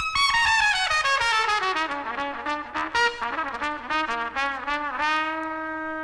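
Solo trumpet playing alone in a big-band jazz recording: a quick run of notes falling from high to low, a string of short bubbling notes, then a held low note near the end.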